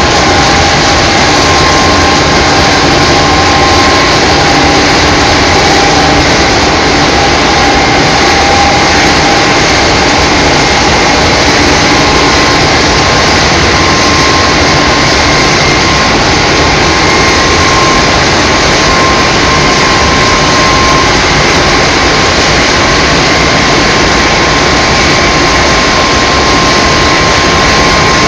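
Aluminium alloy rod breakdown (wire drawing) machine running at production speed: a loud, steady mechanical noise with a few faint whining tones that fade in and out.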